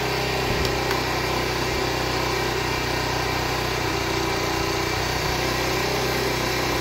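Motorcycle engine idling steadily while it powers an electric desk fan through a battery-fed inverter: a constant, even hum.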